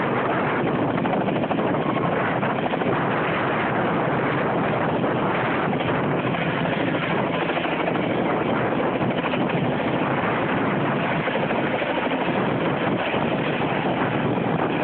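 Light two-blade-rotor helicopter lifting off and climbing away: a loud, steady rush of turbine and rotor noise.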